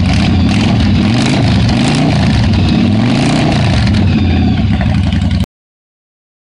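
Yamaha V-Star 1100's air-cooled V-twin engine idling loud and steady just after start-up; the sound cuts off abruptly about five and a half seconds in.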